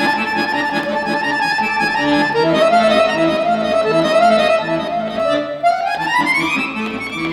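Solo piano accordion playing: a held right-hand melody note over short, rhythmic left-hand bass and chord notes, then a fast rising run of notes near the end.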